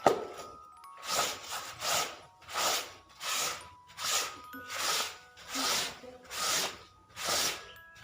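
Wet clothes being scrubbed by hand: rhythmic rubbing strokes, about three every two seconds, after a sharp knock at the very start.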